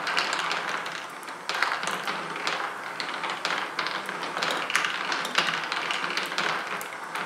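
Mini golf marble machine running: many marbles rolling, clicking and tapping along plastic tracks and into the holes in a dense, continuous patter, over the steady hum of the motor-driven marble lift.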